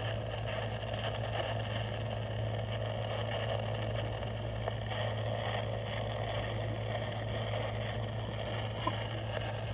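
Dead air on a NOAA Weather Radio broadcast: a steady radio hiss over a constant low hum, with no end-of-message data bursts heard where the message should be closed off.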